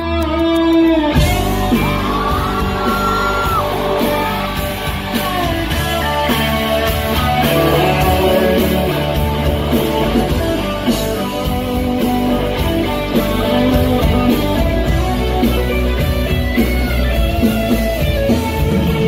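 Live rock band playing: acoustic and electric guitars, bass and drums, with the full band coming in about a second in after a held guitar chord.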